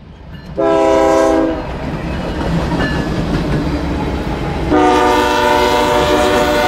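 Freight train locomotive air horn: a short blast about half a second in, then a long blast starting near the end that carries on, over the steady low rumble of the train.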